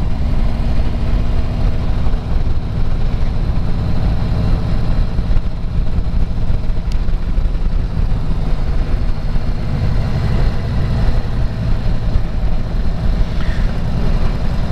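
Harley-Davidson touring motorcycle's V-twin engine running steadily while riding.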